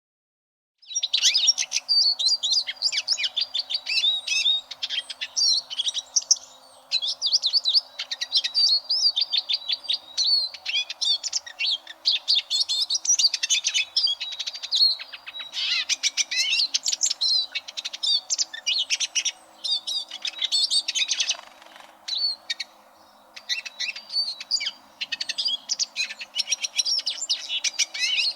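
Eurasian siskin singing: a long, fast twittering song of high chirps and trills. It starts about a second in and runs on with two brief pauses.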